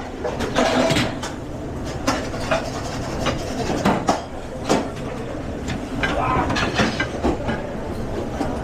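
Busy commercial kitchen during service: a steady background din with frequent clatter and knocks of pans and utensils, and faint background voices.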